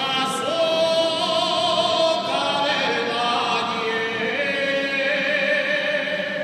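Choir singing a slow religious song, holding long, slightly wavering notes that step to a new pitch every second or so.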